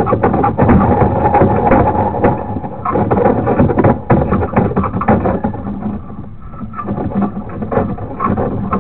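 Sewer inspection camera's push cable being fed down a drain stack, rattling, scraping and knocking irregularly, easing off briefly a little past the middle.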